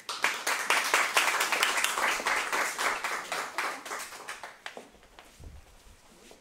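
A small audience applauding, fast dense clapping that dies away over about five seconds.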